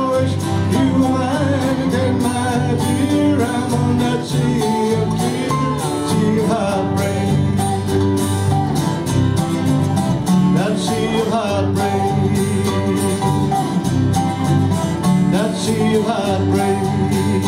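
Live country band playing an instrumental passage: strummed acoustic guitar, electric guitar lead, bass guitar and keyboard.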